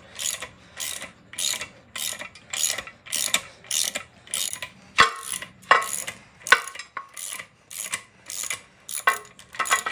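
Hand socket ratchet clicking in quick repeated strokes, about two or three a second, as it turns the forcing bolt of a three-jaw harmonic balancer puller to draw the crank pulley off a GM 6.0 V8. Two sharper clacks stand out about midway.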